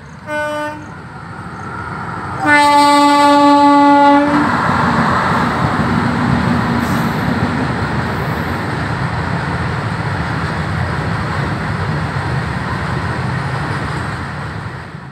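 Electric locomotive horn: a short blast, then a long loud one about two and a half seconds in, as a freight train of open wagons approaches. Then the steady rumble of the wagons rolling past.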